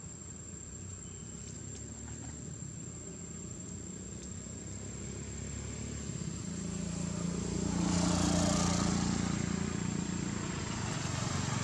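A motor vehicle passing on the road: it builds from about halfway through, is loudest about two-thirds of the way in, then eases off. A steady high-pitched insect trill runs underneath.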